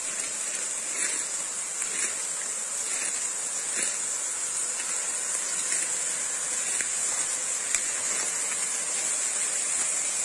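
A high-pressure jet of water spraying sideways through the air, a steady hissing rush.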